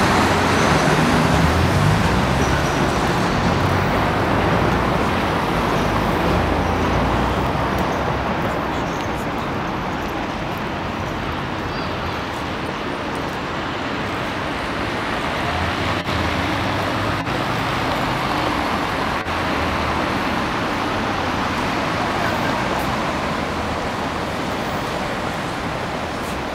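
Road traffic from a city street: a steady noise of passing cars, with a low rumble that swells near the start and again about two-thirds of the way through as vehicles go by.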